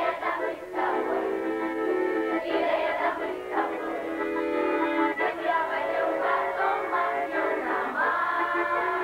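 A song: voices singing over accordion accompaniment, with long held notes.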